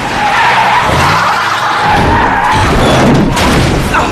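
A vehicle skidding out of control, its tires screeching in a long squeal, with heavy thuds near the end.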